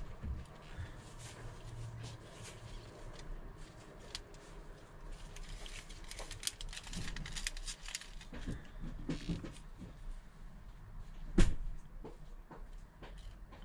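A slice of cheesecake being taken out of its small plastic container and wrapping: scattered light crinkles and clicks of plastic, busiest in the middle, with one sharp knock about eleven seconds in.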